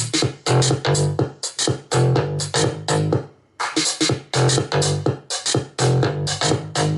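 Electronic music with a steady beat and heavy bass pulses, played at full volume through a small JBL GO-series Bluetooth speaker; the music drops out briefly about halfway through.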